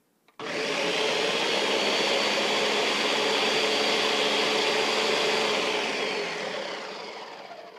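Countertop blender switched on, its motor running steadily at high speed while it blends a liquid poppy seed dressing of oil, sugar and vinegar. It starts abruptly about half a second in and winds down gradually over the last two seconds as it is switched off.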